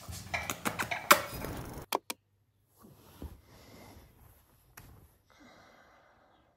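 Dishes clinking and knocking as plates are handled, cut off abruptly about two seconds in; after that only faint rustling and a single soft click.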